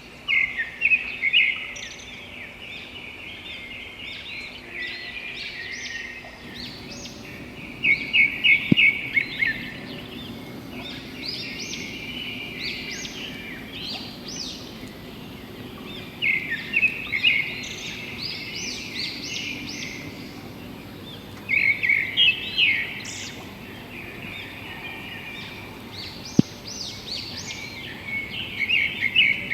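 Birds calling: loud bouts of quick, repeated chirping notes come every five to eight seconds over a steady background of other birds. Two short clicks are heard, about nine seconds in and near the end.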